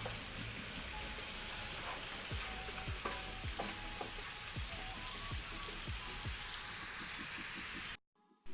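Bone-in chicken pieces sizzling as they fry in butter and oil in a pan, with a spoon stirring and scraping now and then. The sizzle cuts off suddenly near the end.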